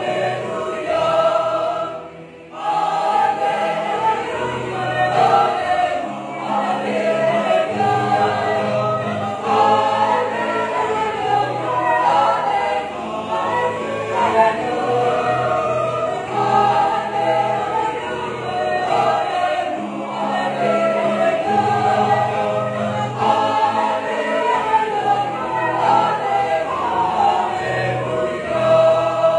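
Mixed church choir of men and women singing a hymn in parts, with a short break for breath about two seconds in.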